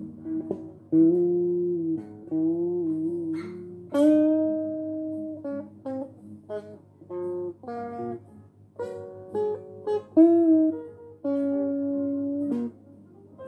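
Electric guitar played solo, picking single notes and two-note chords, with string bends that slide the pitch and some notes held for a second or more. A steady low hum runs underneath.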